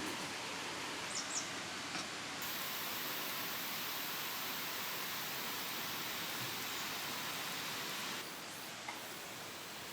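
Steady rushing of a mountain valley stream, with a few light clicks about a second in.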